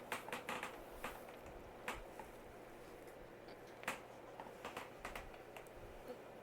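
Irregular light clicks and taps, scattered through the stretch, over a faint steady low hum.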